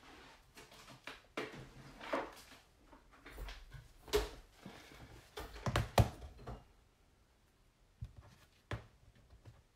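A stamp being tapped on a black ink pad and pressed onto paper on a tabletop: a series of light taps, knocks and rustles, the loudest about four and six seconds in, then two short knocks near the end.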